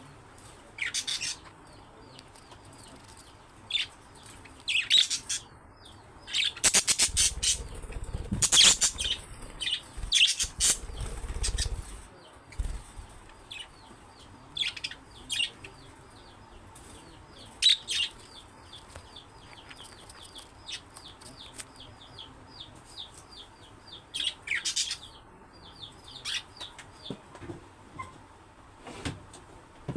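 Budgerigars chirping and chattering in quick, high, repeated notes, with a louder, busier stretch of calls and wing-flapping between about seven and twelve seconds in.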